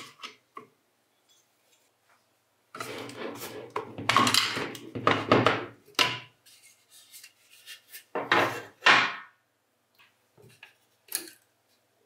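Hard objects being handled: scattered clicks and knocks, with a few seconds of rubbing or scraping starting about three seconds in and a shorter stretch about eight seconds in.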